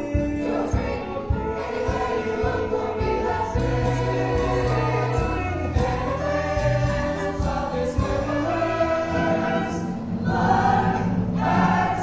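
A choir of cast voices singing a musical-theatre number over instrumental accompaniment.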